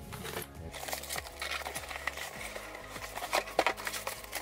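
Cardboard shipping carton being opened and a plastic-wrapped box handled inside it: plastic crinkling and rustling with scattered clicks and taps.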